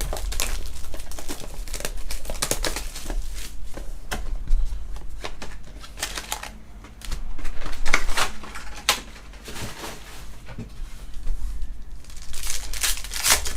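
Trading-card pack wrappers crinkling and cards being handled: an irregular run of sharp crackles and clicks, busiest around the middle and near the end, over a steady low hum.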